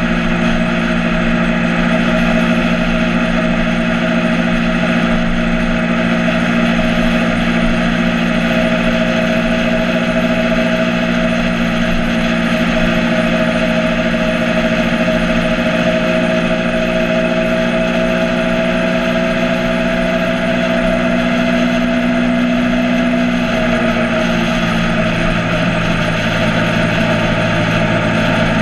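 Motorcycle engine running steadily, with a rushing noise over it; about 24 seconds in, its pitch drops and settles lower.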